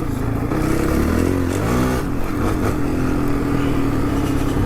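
Honda CRF450 dirt bike's single-cylinder four-stroke engine running under way. The engine note drops off about a second and a half in, then picks back up and holds steady.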